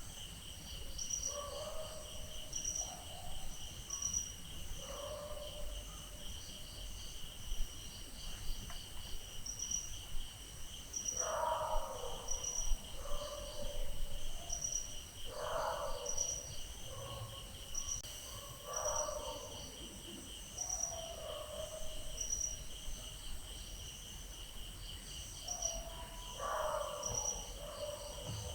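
Night ambience of crickets chirping steadily in a fast pulsing trill, with a second, higher insect chirping in short repeated bursts. Dogs bark now and then over it, several louder barks standing out.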